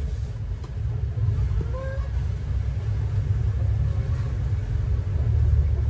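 Steady low machine rumble.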